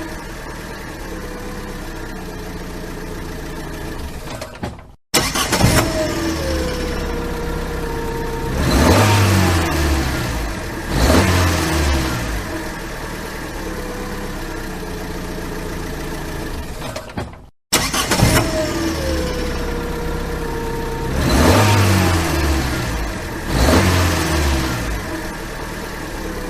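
Comedic cartoon-style car engine sound effect. The engine starts abruptly with a falling whine, idles steadily, then revs up twice and settles back to idle. The whole sequence cuts out briefly and plays again.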